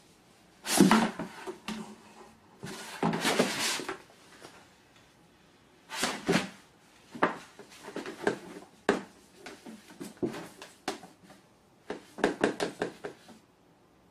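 A cat playing: irregular bursts of scuffling and rustling with sharp knocks and clicks, four main bursts with scattered single clicks between them.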